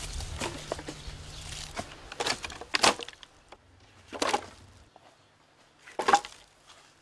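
Split firewood logs tossed onto a woodpile, landing with sharp wooden knocks and clatters at irregular intervals, loudest about three seconds in and again about six seconds in.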